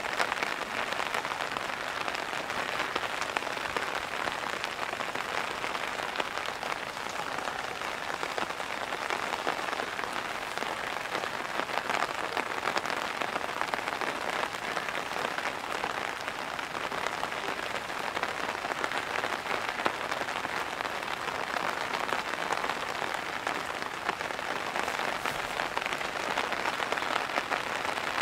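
Heavy pouring rain: a steady, even hiss of a dense patter of drops that holds without a break.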